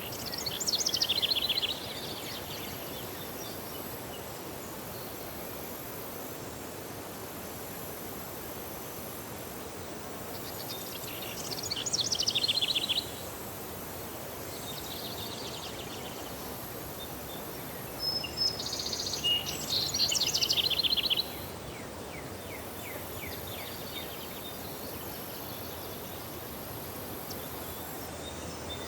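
A songbird singing three short bouts of rapid trilled song, each one to three seconds long and spaced several seconds apart, over a steady outdoor background hiss.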